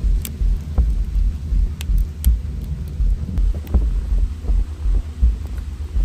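Wood fire burning hard in a masonry oven: a low, uneven fluttering rumble with a few sharp crackles and pops.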